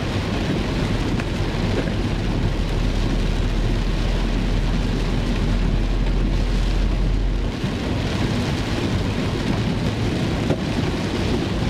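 Heavy rain drumming on a car's roof and windshield, heard from inside the cabin, with a steady deep rumble of road and wind noise under it that eases about seven and a half seconds in.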